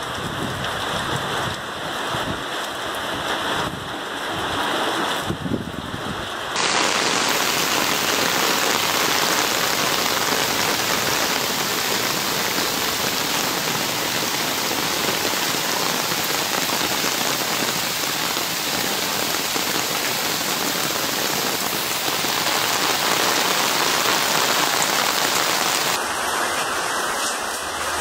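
Heavy rain pouring down, a steady dense hiss. About six seconds in it becomes abruptly louder and brighter, and near the end it changes again.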